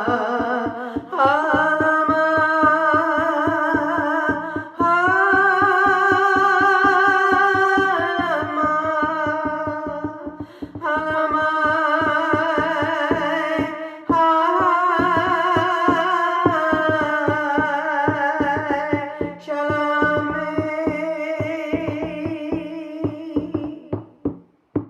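A woman's voice singing long, wordless held notes with a wavering pitch over a steady, fast hand-drum beat, as in a shamanic trance chant. The voice fades out near the end while the drumming carries on.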